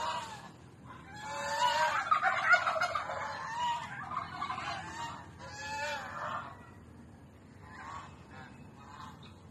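Guinea fowl calling: harsh, repeated cries that overlap into a loud burst about two seconds in, followed by a few more calls that grow fainter near the end.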